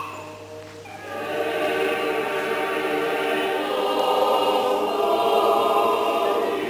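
Orthodox church choir singing a liturgical chant, several voices together, swelling louder about a second in and holding.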